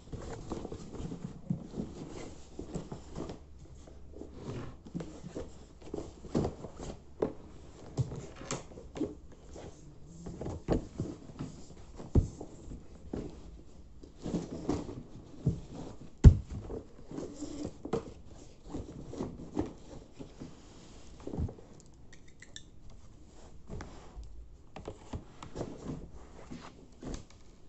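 Handling noises of a backpack being packed: cloth rustling while books and other items are knocked and set down in irregular clicks and thumps, the loudest about 16 seconds in.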